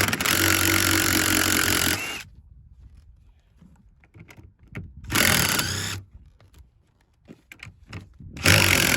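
Cordless power tool on a 14 mm socket backing out seat belt bolts, running in three bursts: a steady run of about two seconds at the start, then two short ones.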